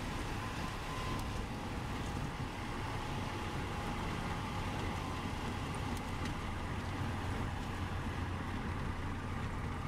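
Cessna 172's piston engine and propeller running steadily as the plane rolls along the runway after landing, heard from inside the cockpit.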